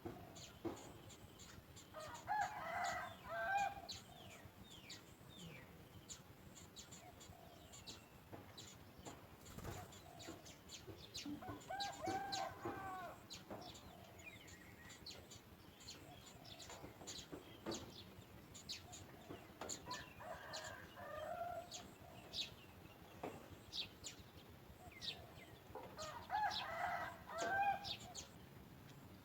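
A rooster crowing four times, about eight seconds apart, over many short, high chirps from small birds.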